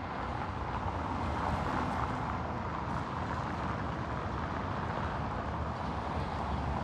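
City street traffic: a steady hum of cars driving over a cobblestone road, with a low rumble underneath.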